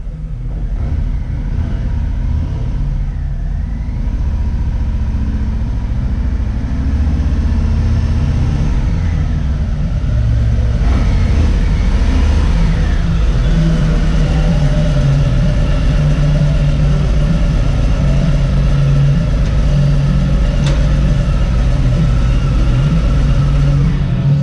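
Touring motorcycle engine running at low speed as the bike rides up close. It grows louder over the first few seconds, then holds a steady low rumble, and cuts off suddenly at the end.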